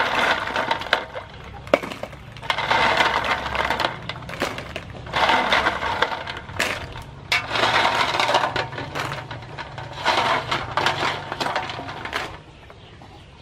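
River snails being scrubbed by hand in water in an aluminium basin: shells clattering against each other and the metal, with water sloshing, in about four louder bursts. It goes quieter near the end.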